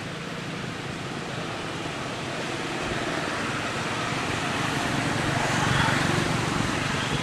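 Passing road traffic: a steady rushing noise that grows louder to a peak about six seconds in, then eases off.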